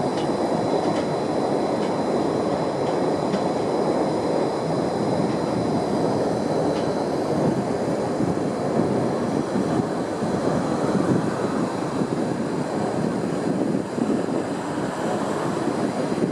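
Freight train wagons rolling past with a steady, loud rumble.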